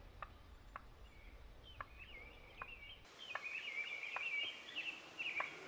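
Wild turkey gobbling: a rolling, warbling call through the second half, with faint sharp clicks scattered throughout.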